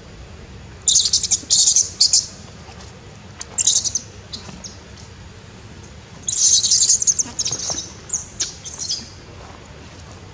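High-pitched animal calls in loud clusters of short, rapid chirps, three times: about a second in, near four seconds, and from about six to nine seconds in.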